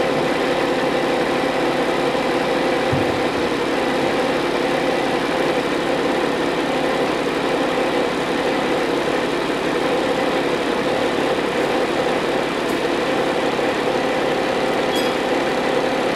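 An engine idling steadily: a loud, even drone with several constant hum tones.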